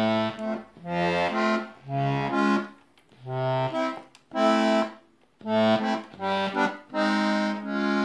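Hohner melodeon played as a string of short chords and bass notes, each about a second long with brief gaps between. The bass buttons are being tried out after their refurbishment; the reeds have not yet been serviced, which is why the notes don't sound too good.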